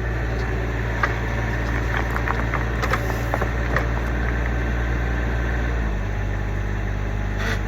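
Kubota U25 mini excavator's diesel engine running steadily, with scattered sharp knocks and clicks through the first half. The engine note drops slightly about six seconds in.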